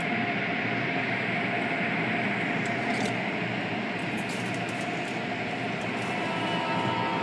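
Automatic car wash heard from inside the car: spinning cloth brushes swishing against the glass and body, with spraying water and a steady mechanical hum. A few sharp ticks come through over the steady noise.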